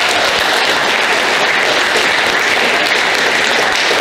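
An audience applauding: many people clapping together at a steady level.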